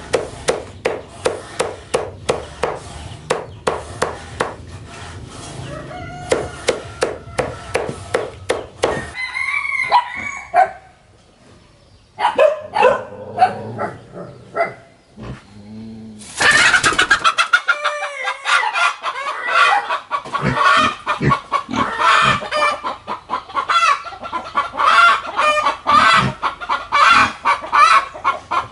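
A large knife chopping plant matter in steady strokes, about two to three a second, for the first several seconds. Chickens then cluck, and from just past halfway a hen clucks loudly and without a break to the end.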